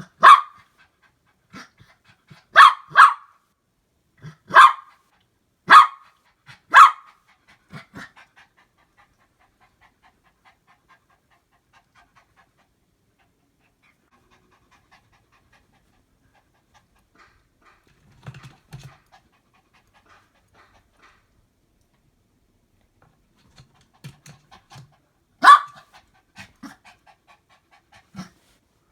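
Dog barking in single sharp barks: six in the first seven seconds, then a long lull, then one more bark near the end.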